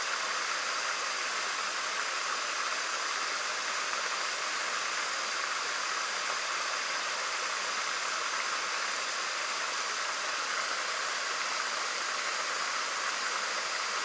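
Steady rush of falling water from a waterfall cascade, an even hiss with no break or change.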